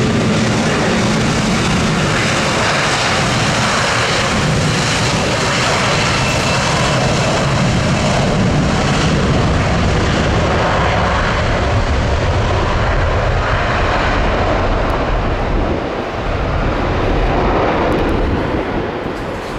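Jet airliner's engines heard loud and steady at close range, with a short dip in level about 16 seconds in and again near the end.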